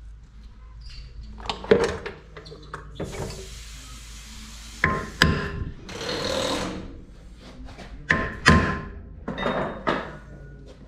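Several sharp metal knocks and clanks from tools on metal parts, some with a brief metallic ring, and a hiss lasting about a second and a half a few seconds in.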